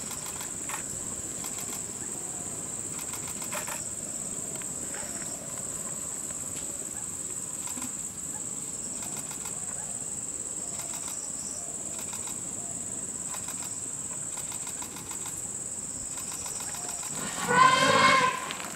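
Steady high-pitched insect drone, with an Asian elephant trumpeting loudly for about a second near the end.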